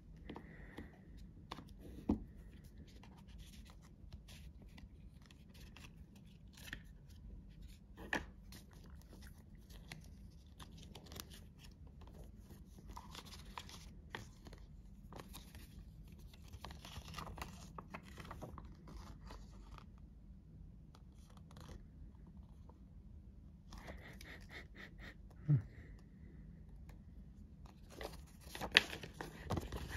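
Paper instruction leaflets and cards being handled and unfolded: faint rustling and sliding of paper, with a few louder knocks.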